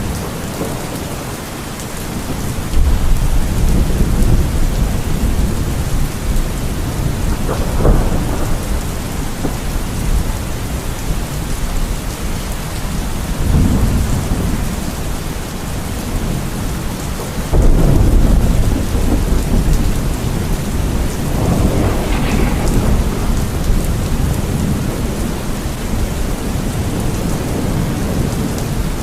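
Steady heavy rain in a thunderstorm, with rolls of thunder rumbling through it several times, the loudest about two-thirds of the way in.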